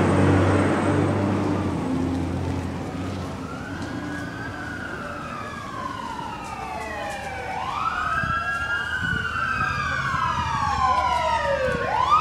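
Emergency vehicle sirens wailing, their pitch sweeping up and down, several overlapping and growing louder toward the end as they approach. A vehicle engine runs close by over the first two seconds.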